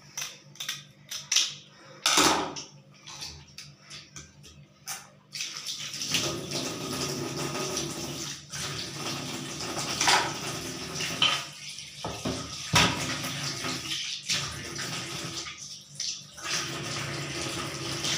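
Kitchen scissors snipping through a catfish's skin, a quick run of sharp cuts. From about five seconds in, a tap runs steadily into the sink, with a couple of louder knocks.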